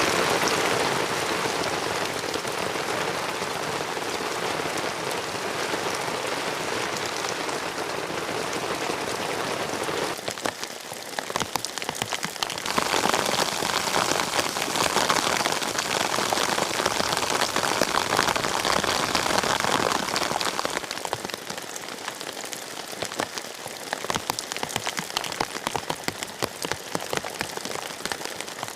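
Steady rain with many separate drops ticking as they strike. It grows louder for several seconds in the middle, then eases off.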